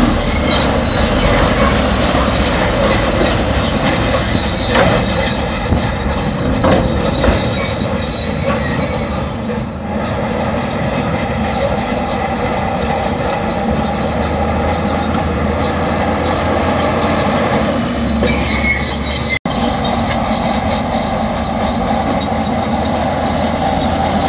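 Shantui crawler bulldozer at work pushing crushed rock: its diesel engine runs steadily under load while the steel tracks squeal and clank.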